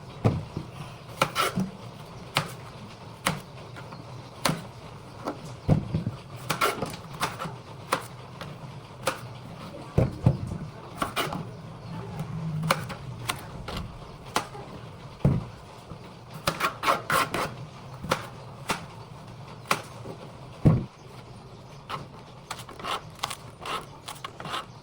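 Irregular knocks and clicks of kitchen utensils, with a few heavier thumps among them.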